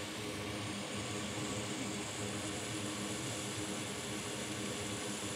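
Hot air rework station blowing steadily: an even rush of air with a low hum, heating solder to seat small surface-mount parts on a laptop logic board.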